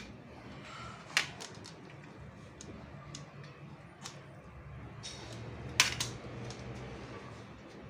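Handheld vegetable peeler scraping a raw potato, with irregular sharp clicks and taps against a metal tray, the loudest about six seconds in.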